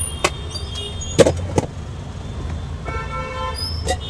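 A metal serving ladle clinks against steel food containers a few times, the loudest strike with a short ring just over a second in. A vehicle horn sounds for under a second near the end, over a steady traffic rumble.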